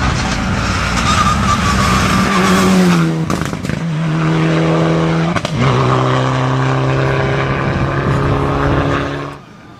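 Mitsubishi Lancer Evolution IX rally car's turbocharged four-cylinder engine running hard at speed as the car passes and pulls away. It holds steady notes that step down in pitch a few times, then drops away suddenly near the end.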